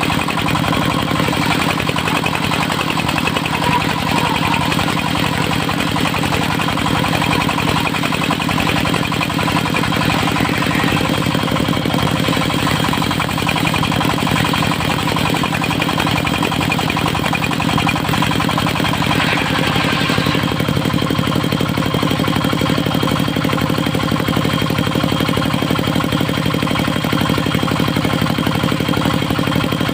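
Engine of a portable circular-saw sawmill running steadily under a constant drone. About twenty seconds in, the higher-pitched part of the sound eases off and the engine note shifts slightly.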